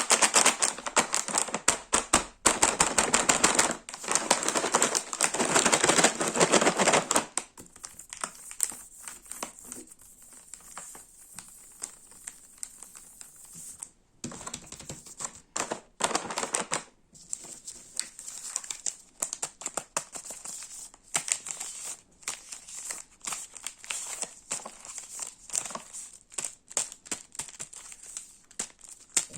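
Crinkly snack packaging being rustled and handled: dense, loud crinkling for the first seven seconds, then quieter scattered crackles and clicks, with a brief louder burst about halfway through.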